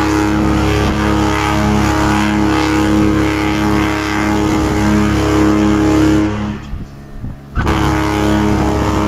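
Cunard liners' ship horns blasting in a passing salute between Queen Mary 2 and Queen Victoria: a loud, long, deep steady tone with a wavering pulse. It breaks off a little after six seconds in and starts again about a second and a half later.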